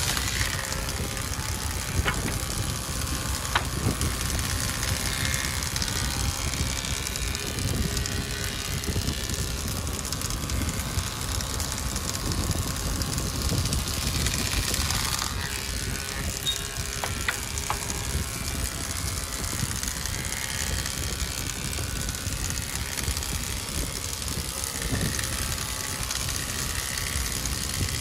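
Wood planing machine running under load, its cutterhead shaving a plank as the board feeds through, a steady dense cutting noise with chips thrown out. A few sharp ticks sound in the first few seconds.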